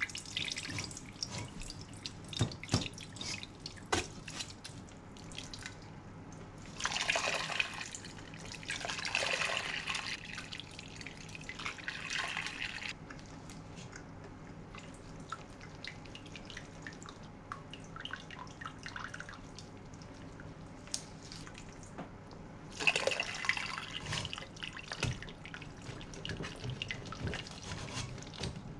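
Ramen soup stock dripping and splashing through a stainless mesh strainer as solids are ladled in from the stockpot, with small clicks and taps of the metal ladle against pot and strainer. The pouring swells three times: about seven seconds in, from about nine to twelve seconds, and again about twenty-three seconds in.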